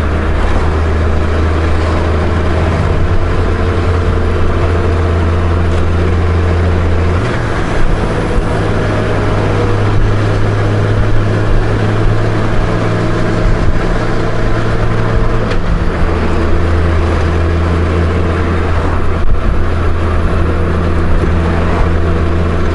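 Honda Gold Wing flat-six motorcycle engine running at cruising speed under wind and road noise. The engine note steps up about seven seconds in and drops back about sixteen seconds in.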